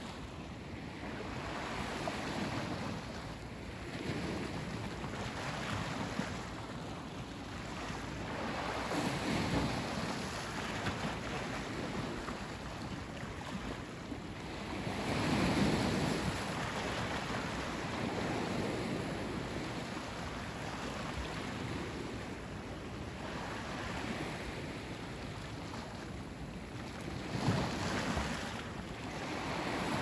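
Ocean waves breaking and washing onto the beach: a steady rush of surf that swells and eases every few seconds, the biggest surge about halfway through.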